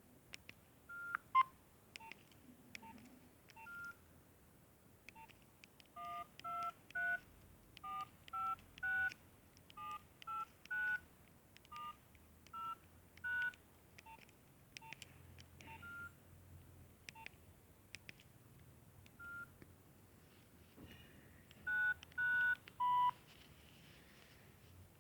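Mobile phone keypad tones from a Nokia 2610 as its keys are pressed. Each press gives a short two-tone DTMF beep. About six seconds in, the keys run through in order, 1-2-3, 4-5-6, 7-8-9, then *-0-#, with scattered single presses before and after and faint key clicks between beeps.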